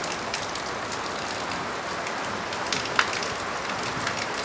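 Rain on a tin roof, with water pouring off the roof edge: a steady hiss with scattered sharp drip taps, one louder about three seconds in.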